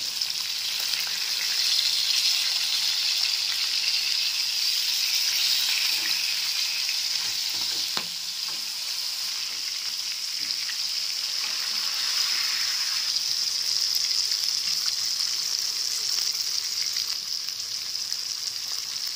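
Masala-coated fish pieces shallow-frying in hot oil, a steady sizzle, with a spatula turning the pieces over in the pan.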